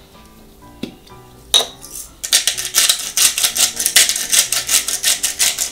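Hand-twisted salt grinder grinding salt: a fast run of crunching clicks starting about two seconds in, after a couple of single knocks.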